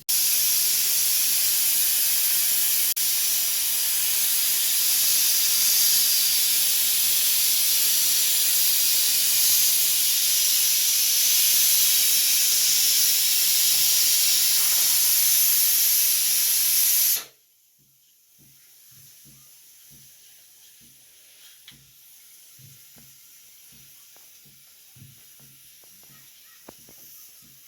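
Loud, steady hiss that cuts off suddenly about seventeen seconds in, followed by faint scattered clicks.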